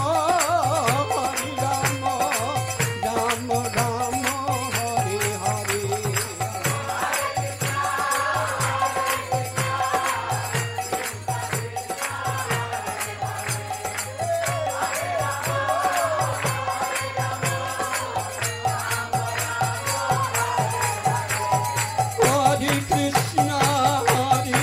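Kirtan: voices chanting a mantra together over a steady drum beat of about two strokes a second, with jingling hand percussion.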